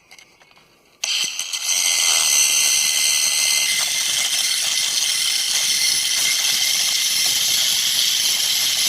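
Angle grinder with a cut-off disc starting about a second in and cutting steadily through a rusted steel U-bolt, a loud, high-pitched grinding scream that holds without a break.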